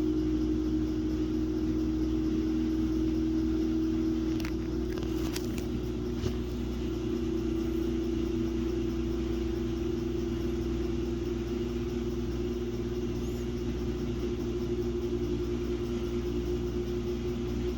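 Samsung WA50R5200AW top-load washing machine running a cycle with a steady motor hum, with a few light clicks about four to six seconds in.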